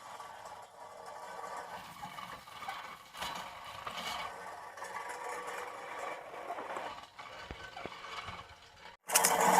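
Manual push reel lawn mower cutting grass, its spinning reel blades making a continuous rattling whir that swells and fades as it is pushed. Near the end the sound drops out for an instant and a much louder noise cuts in suddenly.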